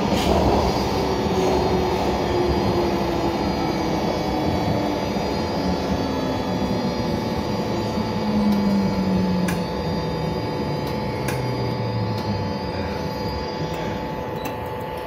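Baltimore Metro SubwayLink railcar heard from inside the car: the steady rumble of the running train, with a motor whine falling steadily in pitch as the train slows into a station. Two sharp clicks come past the middle.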